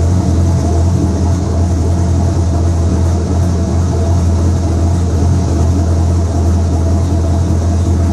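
Steady, deep mechanical hum of a running vehicle engine and fuel system, with fuel hissing and splashing as it streams from a line into the fuel tank.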